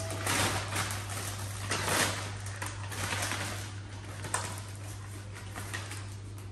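Plastic shopping bags rustling and crinkling in irregular bursts as a hand rummages inside them, with one sharp click a little after four seconds, over a steady low hum.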